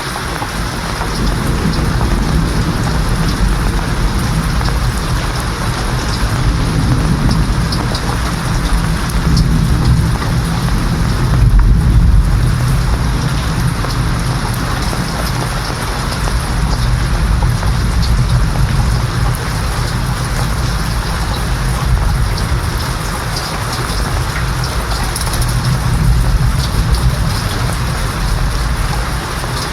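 Steady heavy rain with low rolling thunder rumbling underneath, swelling and fading several times; the biggest roll of thunder comes about twelve seconds in.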